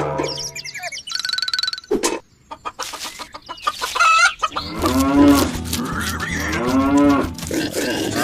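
Animal calls: two long calls that rise and fall in pitch, about five and seven seconds in, over a low steady hum, after a short run of clicks and buzzy sounds.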